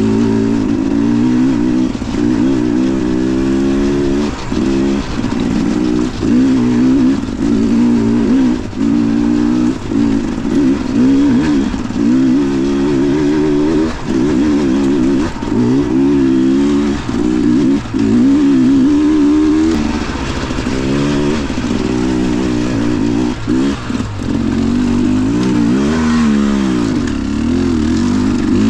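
Dirt bike engine under way, its pitch rising and falling with the throttle and cutting back briefly every second or two as the rider rolls on and off.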